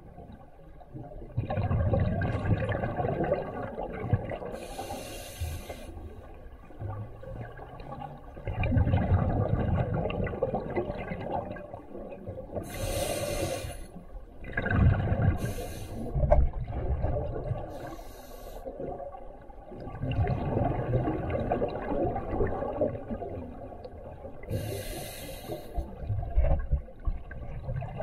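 Scuba diver breathing through a regulator underwater: a short hiss on each inhalation, then a longer rumble of exhaled bubbles, about every six seconds.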